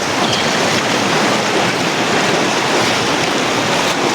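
Steady, loud rush of falling and flowing water from a waterfall and its stream.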